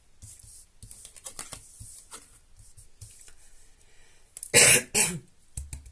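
A woman coughs twice in quick succession, loud and sharp, after a few seconds of faint rustling and small clicks.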